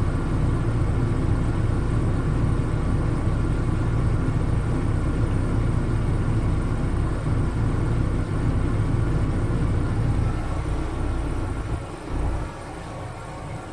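Heavy diesel road-works machinery running with a steady low rumble, heard from inside a front loader's cab; it gets quieter about two seconds before the end.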